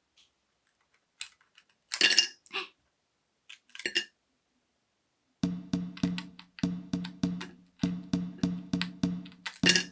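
Brittle dalgona (sugar honeycomb toffee) cracking and clicking as a safety pin picks at it, with a sharp crack about two seconds in and another about four seconds in. About halfway through, music with a steady repeating beat comes in.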